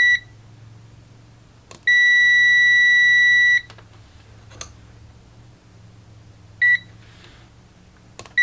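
The continuity buzzer of an Acegmet JXM8000 digital multimeter beeps with a steady high tone each time the probe tips are touched together, signalling a closed circuit. One beep stops just after the start, a long beep of almost two seconds comes about two seconds in, a very short chirp comes near seven seconds, and another beep begins near the end. Faint clicks of the probe tips meeting come just before the beeps.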